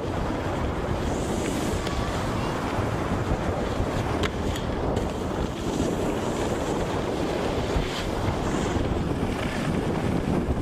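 Wind buffeting the microphone of a camera moving fast downhill, a steady low rush, with the hiss of a snowboard sliding and carving over packed snow coming and going every few seconds.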